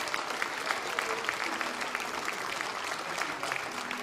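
A congregation applauding with dense, steady clapping, with faint voices underneath.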